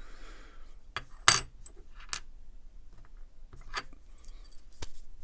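Small metal pocket-knife pivot parts clicking and clinking against each other and the work surface as they are handled: a handful of separate sharp clinks, the loudest about a second in.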